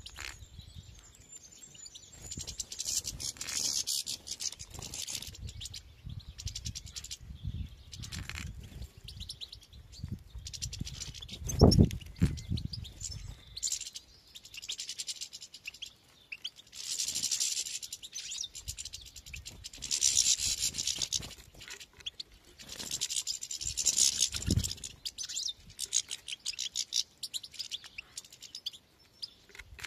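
European goldfinches twittering in several bursts of rapid, high chirps. A loud low thump about twelve seconds in, with low rumbling underneath at times.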